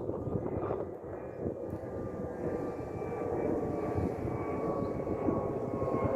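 Steady drone of a small propeller engine over wind noise, slowly growing louder.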